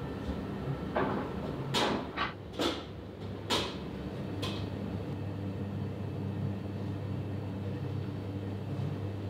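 A run of about six short scrapes and knocks, as things are handled behind a counter, over a steady low hum.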